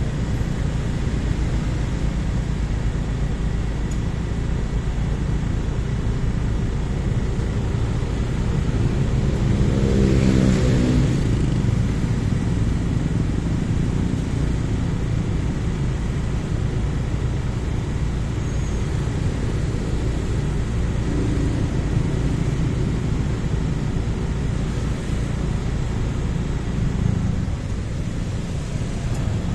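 Idling traffic: a steady low engine rumble from the motorcycle and the cars and truck queued around it. About ten seconds in, a nearby engine revs up and back down.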